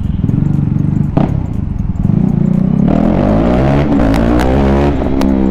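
KTM RC 390's single-cylinder engine running with its muffler removed, very loud, revving as the bike accelerates into an underpass. Its pitch climbs and drops repeatedly in the second half, with a few sharp cracks from the open exhaust.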